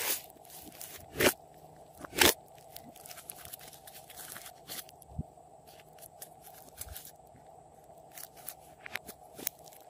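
Thick pink-and-yellow slime being kneaded and squeezed by hand, giving sharp pops and crackles as it is pressed. Two loud pops come a little over one and two seconds in, then lighter, scattered crackling.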